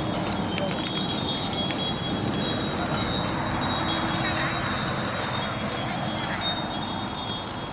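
Small bells tinkling irregularly, high and light, over a steady background rumble.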